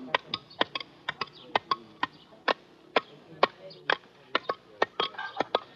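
Hand tools hammering on stone, chipping rock: sharp, irregular knocks, about three or four a second, some with a brief ringing tone.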